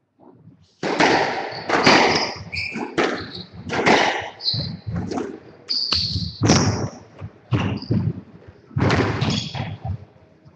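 Squash rally: the ball struck by racquets and rebounding off the court walls, a run of about ten sharp, echoing hits, with short high squeaks between them. It starts with the serve about a second in and stops shortly before the end.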